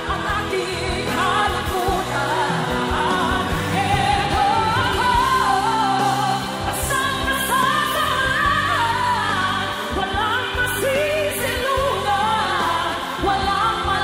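A woman singing a Tagalog pop ballad in a belting style into a microphone, over a steady musical accompaniment.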